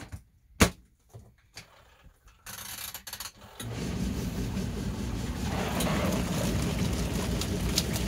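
A sharp knock about half a second in and a few faint clicks, then from about three and a half seconds a twin-tub portable washing machine's wash tub starts agitating and runs steadily, its motor churning soapy water and clothes.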